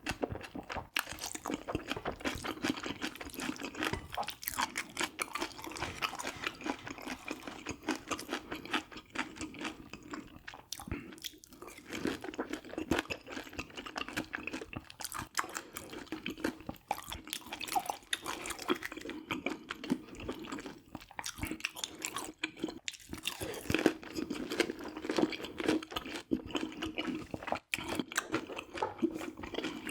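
Close-miked chewing and crunching of food, with continuous small crackling bites throughout.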